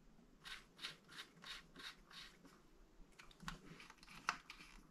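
Faint scratching and rubbing as hands work a thin insulated wire, in short strokes about three a second, followed by a couple of light clicks, the sharper one near the end.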